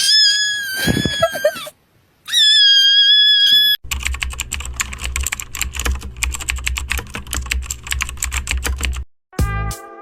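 Two high-pitched cat meows, then fast, rapid clicking of computer keyboard typing for about five seconds, used as meme sound effects.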